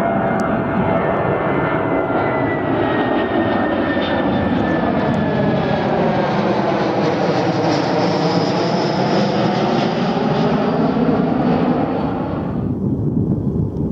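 Airbus A320's twin jet engines at high thrust as it climbs away in a go-around and passes overhead: a loud, steady jet roar with a whine that slowly falls in pitch and a sweeping quality as it goes over. Near the end the high end of the sound drops away as the aircraft recedes.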